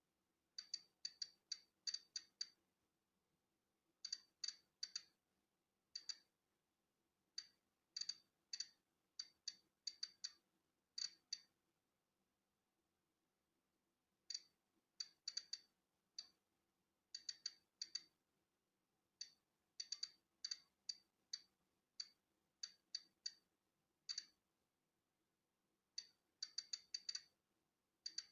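Polon EKO-C digital Geiger counter clicking at random intervals, each click a particle detected from natural background radiation. The clicks are short and high-pitched, sometimes in quick runs, with a pause of about two seconds near the middle.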